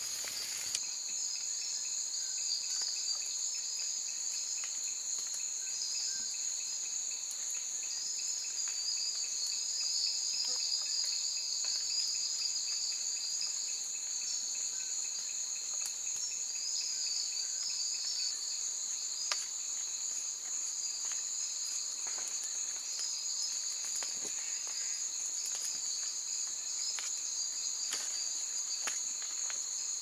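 Night chorus of insects in the rainforest: a steady high-pitched shrilling at two pitches. A faster pulsing trill sits beneath it in the first part, and faint scattered clicks come and go.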